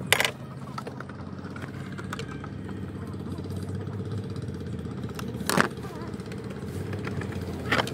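Petrol engine of a 1996 Mercedes-Benz idling steadily, with three sharp knocks as the plastic intake ducting is handled: one at the start, one past the middle and one near the end.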